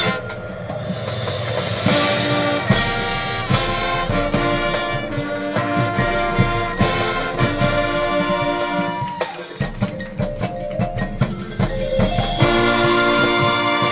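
High school marching band playing: brass chords over marimbas and drums. The sound eases off for a few seconds, then swells into a louder full-band passage near the end.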